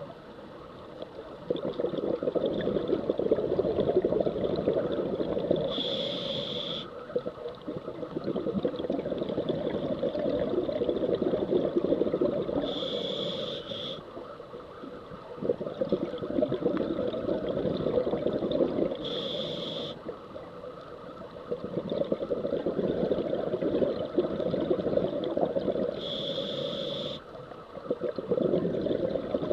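Scuba diver breathing through a regulator, heard underwater: a short hiss of inhalation about every six and a half seconds, four times, each followed by a few seconds of bubbling as the exhaled air leaves the regulator.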